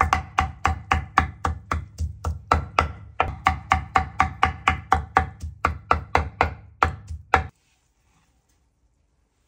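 Knife chopping food on a cutting board in quick, steady strokes, about four a second, each stroke a thud with a short ringing note. The chopping stops abruptly about seven and a half seconds in.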